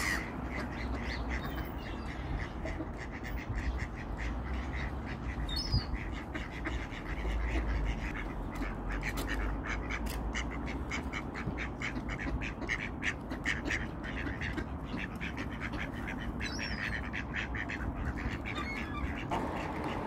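Mallard ducks quacking in quick, repeated runs, busiest in the middle, with a few brief high calls mixed in.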